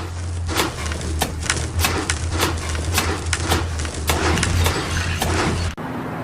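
A rapid, irregular series of sharp knocks or cracks, about two to three a second, over a steady low hum.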